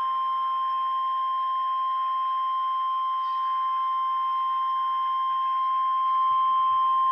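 NOAA Weather Radio's Emergency Alert System warning alarm tone: one steady, high-pitched tone of about 1050 Hz, held unbroken. It is the signal that an emergency alert follows, here a tornado warning.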